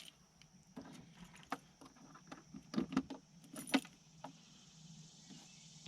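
A few irregular light metallic clicks and jingles, with a cluster of them about halfway through, over a faint steady hum.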